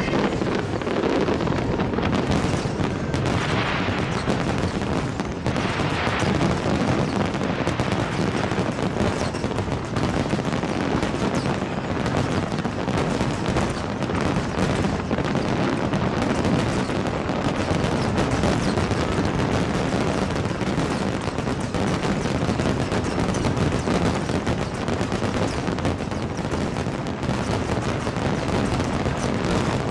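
Fireworks display: a dense, unbroken barrage of shells bursting, many rapid cracks and bangs overlapping in a continuous crackle with deeper booms underneath.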